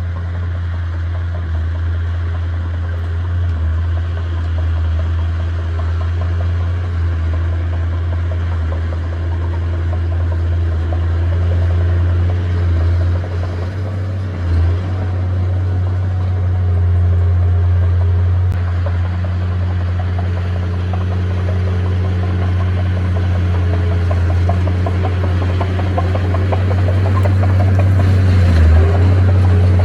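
Diesel engine of a heavy earthmoving machine running steadily: a loud, deep hum that dips briefly a few times.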